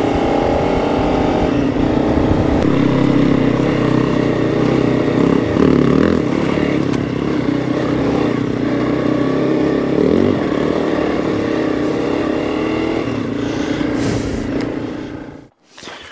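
Motorcycle engine running steadily under way, its pitch shifting a few times. It cuts off suddenly near the end.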